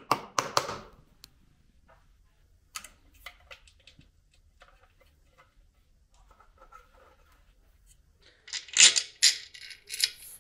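Metal parts of an electric motor being handled: a few light clicks and taps, then about two seconds of scraping and rattling near the end as a long mounting bolt is worked in beside the fan.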